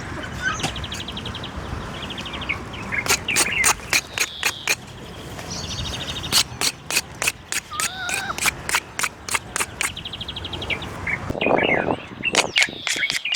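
Birds chirping and trilling while sharp knocks or bangs repeat irregularly, at times several a second, a noise coming from the neighbours.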